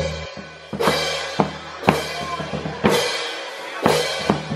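A marching band's drums and hand-held crash cymbals playing a beat, with a ringing cymbal crash about once a second.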